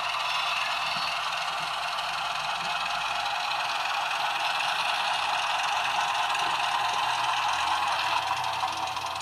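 Model Kö II shunting locomotive with an ESU LokSound 4.0 decoder playing its small diesel engine sound through a tiny speaker. The sound is steady and thin, with almost no bass, and mixed with rattling and clatter.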